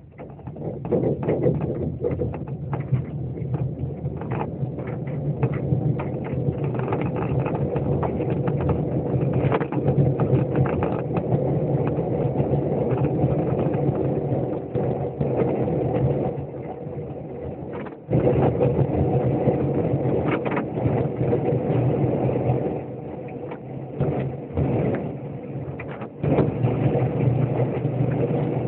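Motorcycle engine running under way, heard from behind the windscreen with wind noise. It pulls steadily, then drops briefly about two-thirds of the way through, eases off for a few seconds and picks up again near the end.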